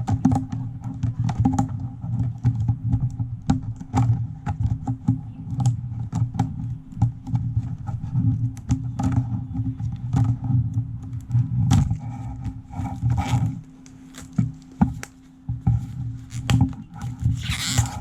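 Hands handling the box and packaging of a USB hub: scattered taps, clicks and thunks, with a brief rustling scrape near the end, over a steady low hum.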